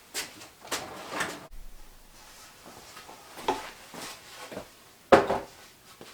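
A series of short knocks and scrapes, like lumber and tools being handled on a workbench, with one sharp knock about five seconds in that is the loudest.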